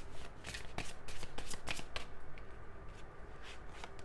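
A deck of oracle cards being shuffled by hand: a quick run of card snaps for about two seconds, then softer, sparser riffling.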